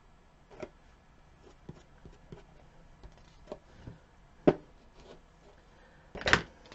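Fingers rubbing and tapping on a paper-covered craft sign while pressing small pieces into place: scattered light taps, a sharper tap about four and a half seconds in, and a brief rustling scrape near the end.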